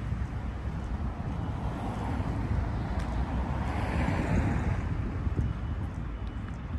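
Street traffic: a steady low rumble of passing vehicles, with one passing close, swelling and fading about four seconds in.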